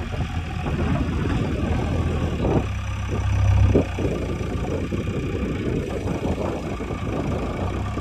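JCB 3DX backhoe loader's diesel engine running as the machine works. Its low note swells about two and a half seconds in and cuts back sharply just before four seconds in.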